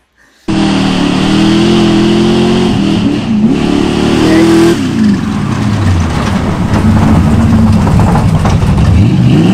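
Lifted vintage pickup truck's engine revving hard. It starts abruptly, holds a high steady pitch, drops about four and a half seconds in, then rises and falls again.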